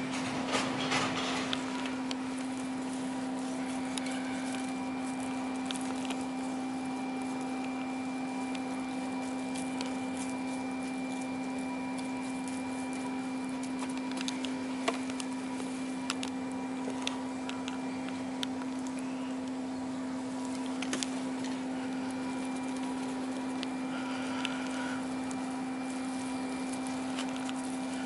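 Steady machine hum with one constant low tone and fainter higher tones, with scattered light clicks and taps over it.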